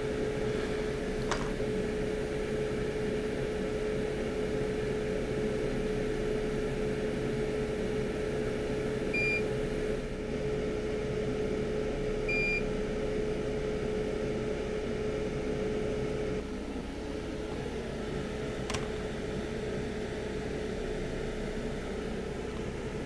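Hot air rework station blower running with a steady hum, two short electronic beeps in the middle, and the hum dropping lower about two-thirds of the way through. There is a faint click near the start and another near the end.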